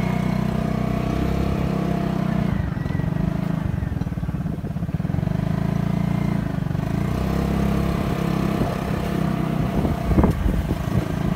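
Small motorcycle engine running steadily while riding over a rough dirt road, its note easing off briefly a couple of times, with a single jolt or knock about ten seconds in.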